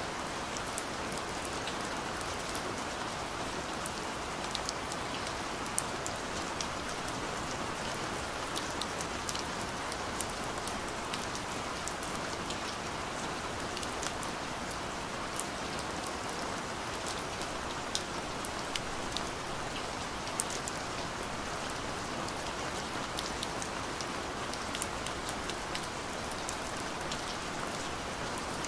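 Steady rain falling: a continuous hiss dotted with many sharp ticks of single drops striking.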